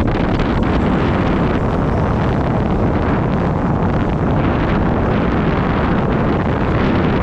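Dirt bike engine running steadily as the bike rides along, mixed with heavy wind buffeting on the helmet-mounted microphone.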